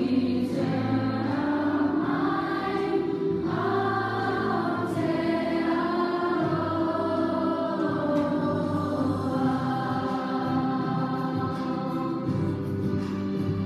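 A large group of children singing together in unison, with steady instrumental accompaniment underneath.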